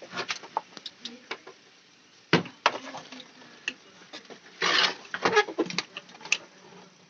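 Irregular clicks and knocks from handling washing machine parts during a timer replacement. One sharper knock comes about two and a half seconds in, and a short scraping rustle comes near the middle.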